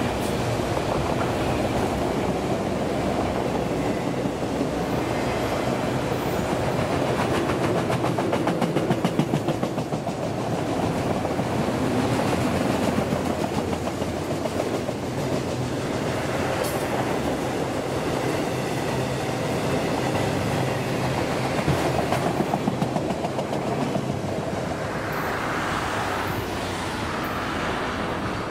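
Autorack freight cars rolling past at speed: a steady rumble of wheels on rail, with spells of clickety-clack as the wheel sets cross rail joints. The last car goes by near the end.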